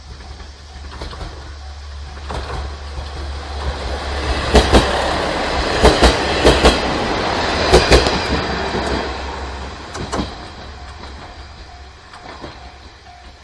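A train passing over a level crossing: its rumble swells and fades, with a run of sharp paired wheel clacks over the rail joints at its loudest. A level-crossing warning bell dings steadily in the background.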